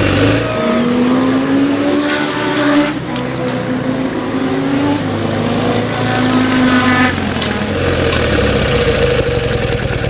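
Vintage BMW flat-twin racing motorcycle engine running at low to moderate revs, its pitch rising and falling several times as it rolls at pit-lane speed.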